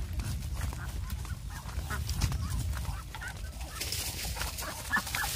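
Domestic fowl clucking faintly over the low rumble and scattered clicks of footsteps and handling on a dirt path, with a few short calls near the end.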